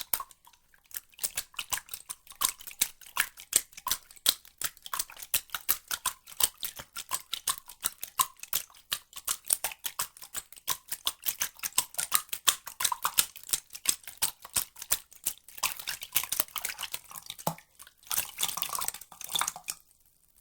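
Water dripping and splashing in quick, irregular drops, several a second, some with a short plinking tone; it grows busier twice near the end and then stops abruptly.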